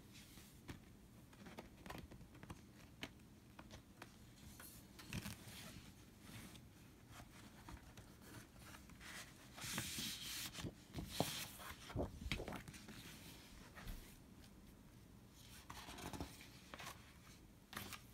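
Glossy gatefold record sleeve and paper booklet being handled: faint rustling, sliding and light taps of paper and card, with a louder sliding rustle about ten seconds in and another near the end.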